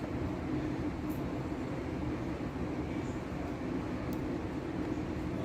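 Steady background hum, like an air conditioner or fan, with a few faint small clicks, about a second in and again near four seconds, from a screwdriver working the screws on a laptop's bottom panel.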